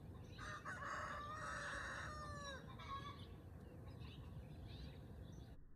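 A faint, drawn-out bird call lasting about two seconds, its pitch bending at the end, followed by a short fainter call about a second later.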